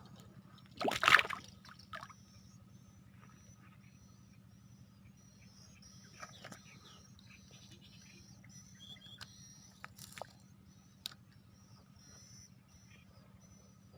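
Small birds chirping over a steady low hum, with a short loud rushing burst about a second in and a few sharp clicks near the end.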